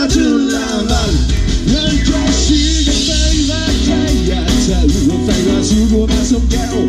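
Live rock band playing: a steady drumbeat with electric guitars, bass and keyboard, amplified through a PA.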